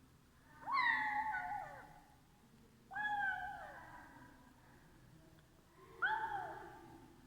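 Kitten meowing while it eats: three separate meows, each about a second long, each dropping in pitch as it ends.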